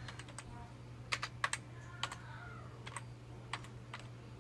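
Typing on a computer keyboard: about a dozen light, irregularly spaced key clicks, over a steady low hum.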